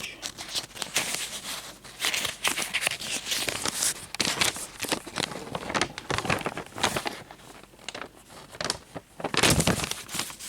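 Paper pages of a small instruction booklet being leafed through and handled: irregular rustling and crinkling, loudest near the end.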